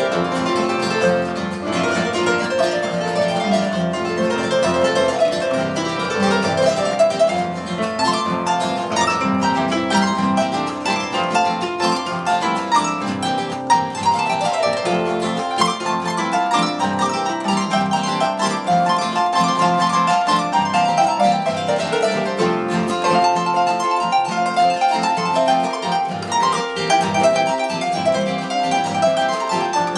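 Harp being played: a continuous, steady stream of plucked notes, melody over lower bass notes, with no pause.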